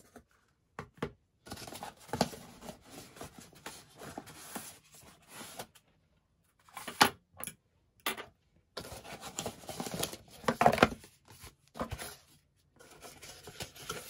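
Unboxing handling sounds from a DJI Pocket 2 Creator Combo box: cardboard and paper rustling, with light taps and clicks as accessories are lifted out of a foam tray. There are a couple of sharper knocks about halfway through and again near the end, and the sound drops out to total silence several times.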